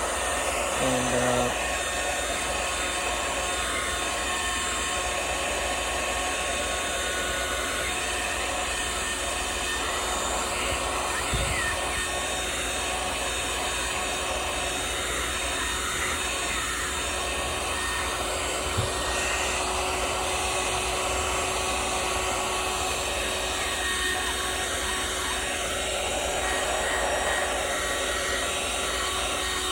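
Hot-air blower running steadily, heating a phone's glued back cover to loosen it for removal. Two faint light knocks are heard, one about a third of the way in and one a little past the middle.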